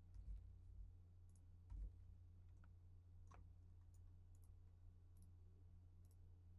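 Near silence: a low steady hum with a few faint computer mouse clicks, the loudest a little under two seconds in.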